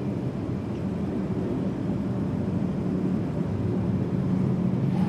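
Steady low hum of room noise with no voices, holding level without a break.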